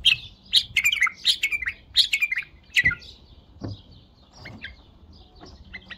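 White-eared bulbul singing: a quick run of loud, sharp chirping phrases with falling notes for about three seconds, then softer, scattered notes.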